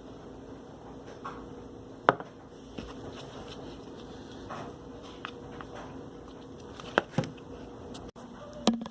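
Glitter slime being worked by hand while dye is mixed in, with soft squishing and a few sharp pops about two seconds in, around seven seconds and near the end.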